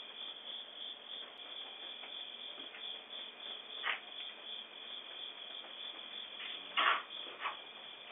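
Crickets chirping steadily, heard through a doorbell camera's microphone, with a few short knocks, the loudest about seven seconds in.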